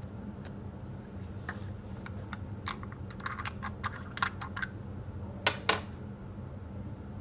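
A run of small irregular clicks and taps from objects being handled, ending in two louder knocks in quick succession, over a steady low hum.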